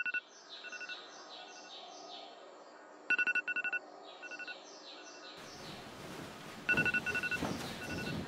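Electronic beeps in quick groups of four or five, each group followed by repeating echoes that fade away. About five seconds in, a hiss of noise swells in under another burst of beeps.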